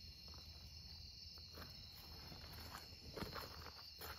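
Faint, steady chorus of crickets at night, a constant high-pitched trill. A few soft clicks and rustles come in during the second half.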